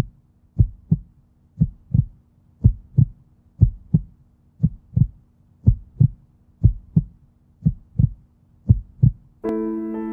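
Heartbeat sound effect: a double thump, lub-dub, about once a second, repeated nine times. Sustained piano chords come in near the end.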